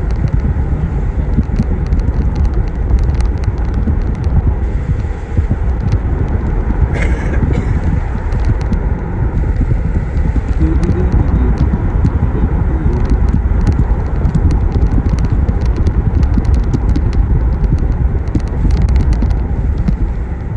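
Road and engine noise of a moving car heard from inside: a steady low rumble scattered with many small clicks and ticks.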